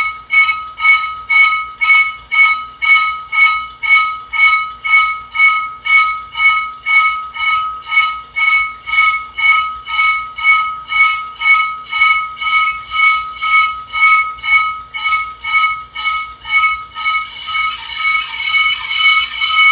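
Brake lathe cutter tip lightly scraping a spinning brake rotor, giving a high-pitched squeal that pulses about twice a second, once per turn as the bit catches the rotor's high spot. Near the end the pulses run together into a steady squeal as the cutter comes into full contact.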